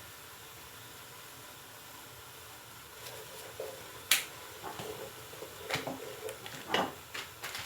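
Sharp clicks and light taps of spice containers being handled over a cooking pot, starting about three seconds in, the loudest a single click about four seconds in.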